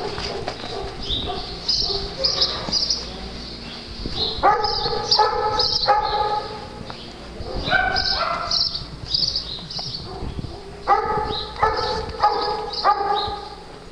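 Dogs barking in runs of several barks, about two a second, with higher short yips between them.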